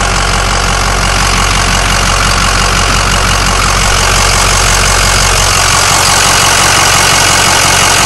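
Ford 6.0L Power Stroke V8 turbo-diesel idling steadily, heard close up in the engine bay. It is a remanufactured longblock that the owner says knocks and ticks and is leaking at the head gasket.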